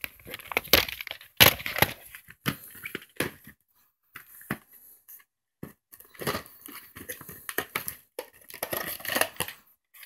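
Plastic VHS cases being handled: irregular crinkling, rustling and clattering of plastic, with a lull in the middle.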